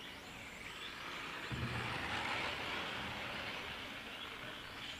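Electric 1/8-scale on-road RC race cars running on an asphalt track, a steady hiss of motors and tyres that swells about a second and a half in. A low rumble starts at the same moment.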